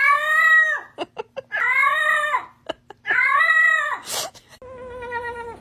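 A cat yowling: three loud, drawn-out meows, each rising then falling in pitch, with short clicks between them. A brief noisy burst about four seconds in is followed by a quieter, steadier call.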